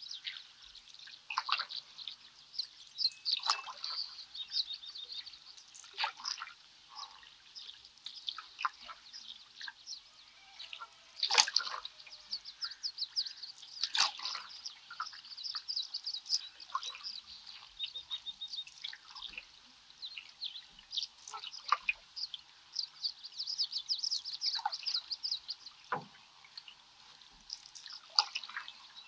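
Canoe paddle strokes: water dipping, splashing and dripping off the blade every few seconds, the loudest stroke about eleven seconds in. Songbirds chirp and trill almost without pause in the background.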